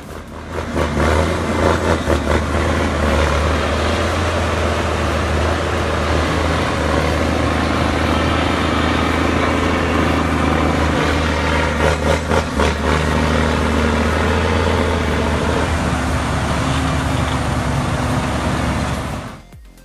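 Heavy truck engine working hard under load on a steep climb: a steady deep drone with a few knocks, cutting off abruptly near the end.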